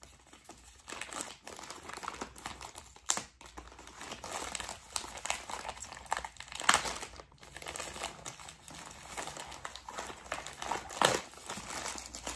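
Green plastic poly mailer bag crinkling and rustling as it is pulled and torn open by hand, with a few louder sharp crackles along the way.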